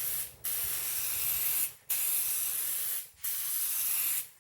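Aerosol can of Meguiar's clear headlight coating spraying in repeated hissing bursts, each about a second long with brief pauses between: one pass ending, then three more full passes. This is the second, heavier coat of clear coating being laid onto the sanded headlight lens.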